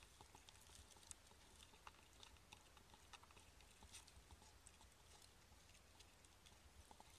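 Faint, scattered crackling and rustling of dry straw as a hedgehog shifts in its nest.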